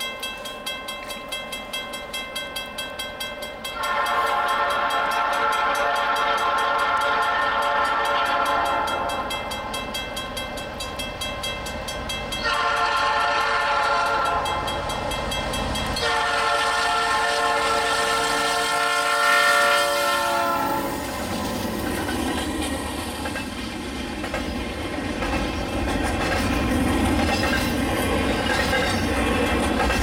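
Freight locomotive air horn sounding three long blasts for a level crossing, the last one dropping in pitch as the locomotives pass. Then the low rumble and clatter of the passing freight train's locomotives and intermodal cars.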